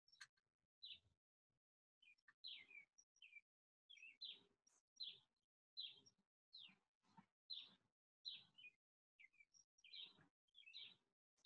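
Faint bird chirping: a steady series of short, falling chirps, more than one a second.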